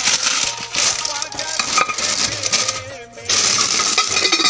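Bone china serving dish with lid being handled in its packing box: plastic wrapping rustling and porcelain clinking, with a brief lull about three seconds in.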